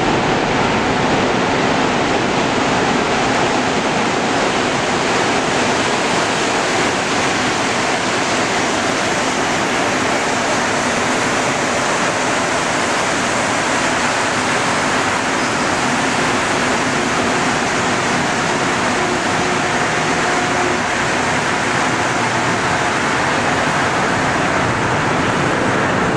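Montreal Metro MR-73 rubber-tyred train running into the station alongside the platform: a loud, steady rushing noise.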